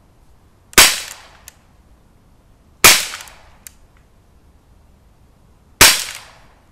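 Gamo P25 CO2 air pistol fired three times, about two and three seconds apart, each shot a sharp crack like a gunshot with a short fading tail. A faint click follows the first two shots a little under a second later.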